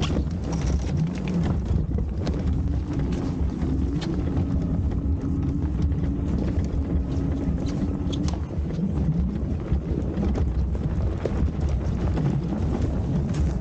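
Fat-tyre electric bike towing a two-wheeled dog trailer over packed snow: a steady rumble of tyres and frame with scattered knocks and rattles. A low steady whine holds for several seconds in the middle.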